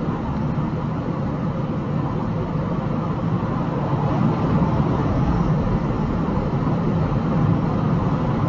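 A flatbed semi-truck driving along, with its engine and road noise making a steady, even din.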